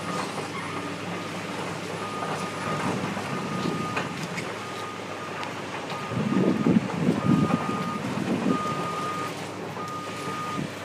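Heavy construction machinery engines running with a backup alarm beeping over them, one steady-pitched beep roughly every second. The engine noise swells louder and rougher for about two seconds near the middle.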